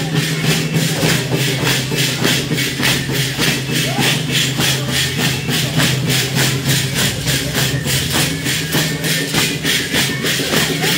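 Sonajas, the wooden rattles with metal jingles carried by sonajeros dancers, shaken in unison in a quick, even beat of about four strokes a second, over a steady low hum.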